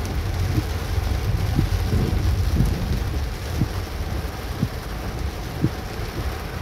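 Heavy rain falling, a steady hiss with a deep low rumble beneath it and a soft low knock about once a second.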